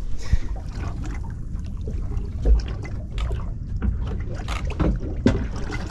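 Water lapping and slapping against the hull of a small drifting boat, under a constant low rumble, with a few scattered knocks; the loudest is a dull thump about two and a half seconds in.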